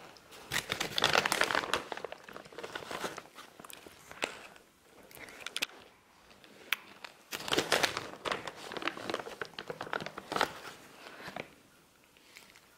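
A cat crunching and chewing its food, a bit loud, in two spells of dense crunching with scattered single crunches between.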